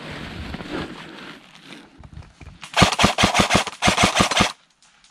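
Airsoft gun firing a rapid string of shots, about six a second, in two close runs around the middle.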